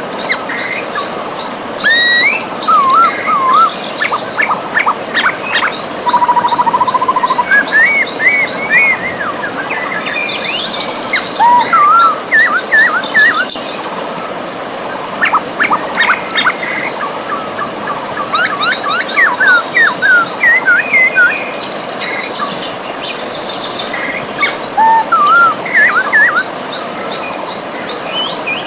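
Several birds singing and calling over the steady rush of a river: quick runs of high chirps, whistled rising and falling notes, and a brief trill about six seconds in.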